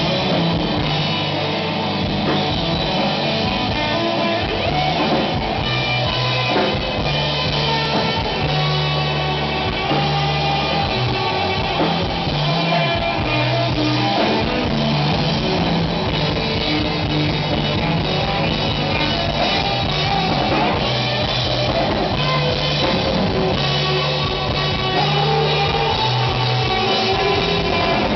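Live rock band playing without a break: electric guitars over a drum kit.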